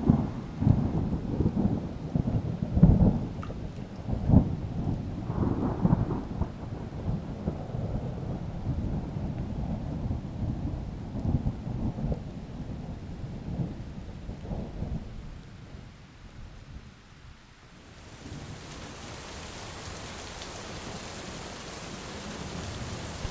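Thunder rumbling in uneven low rolls over rain, dying away a little past halfway. After a short lull, a steady, even hiss of rain takes over for the last few seconds.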